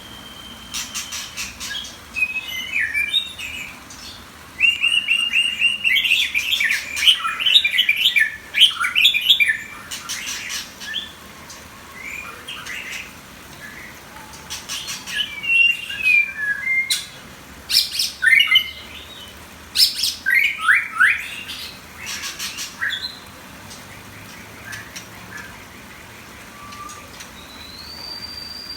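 White-rumped shama singing in bursts of quick, varied whistled notes mixed with sharp clicks, with short pauses between phrases. The longest, loudest run of song comes a few seconds in, and a single drawn-out whistle comes near the end.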